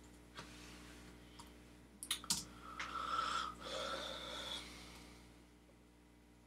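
Computer keyboard keystrokes with scattered sharp clicks, the loudest two close together about two seconds in, followed by a drawn-out breathy exhale lasting almost two seconds.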